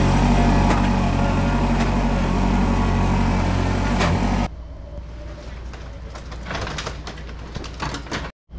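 John Deere tractor's engine running steadily under load, heard from the seat while the front loader carries a box. About four and a half seconds in, it cuts off suddenly to a much quieter stretch with scattered light clicks and knocks.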